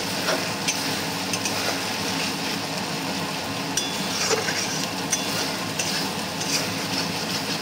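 Spice paste frying in oil in a steel wok, sizzling steadily while a metal spatula stirs and scrapes it, with scattered light clinks of metal on metal. The masala is being fried down before the meat is added.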